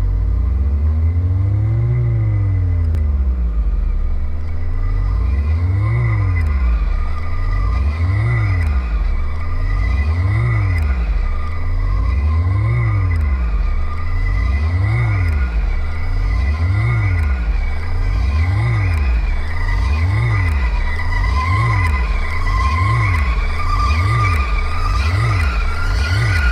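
Analog synthesizer oscillators (VCOs) swept by a spinning angle-resolving potentiometer: the pitch glides up and down in repeating arcs, one per turn, over a steady low rumble. The arcs come faster as the spin speeds up, from about every two seconds to less than a second apart near the end.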